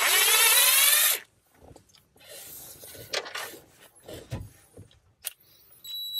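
Power driver with a T30 Torx bit spinning for about a second at the start, its pitch rising as it works a screw on the transmission shifter cover. A few light clicks follow, and a thin steady high tone sounds near the end.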